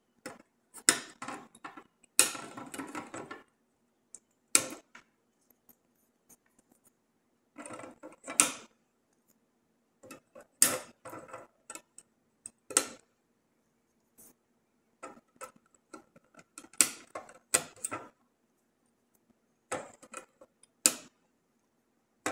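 Flush cutters snipping the soldered component leads off the back of a circuit board: about nine sharp snaps at irregular intervals, with small clatters of the board, leads and tools being handled between them.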